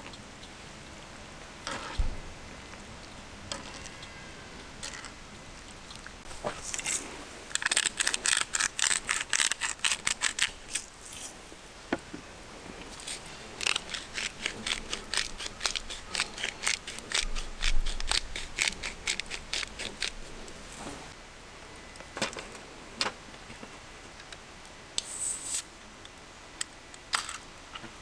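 Utensil scraping and clicking against cookware in quick repeated strokes, in two runs of a few seconds each, with scattered single knocks around them.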